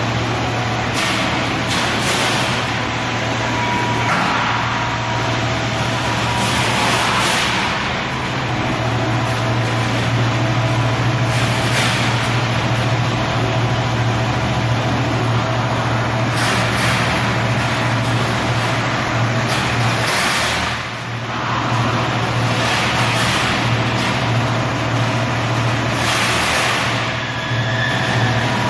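CNC spring coiling machine running as it coils garage door spring wire: a steady low hum under constant mechanical noise, with a brief louder surge of noise every few seconds.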